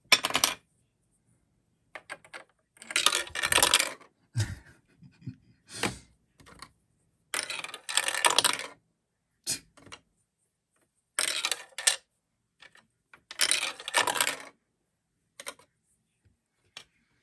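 Hard plastic marble-run pieces clicking and clattering as they are handled and fitted together, in four short bursts of rapid clicks with single clicks in between.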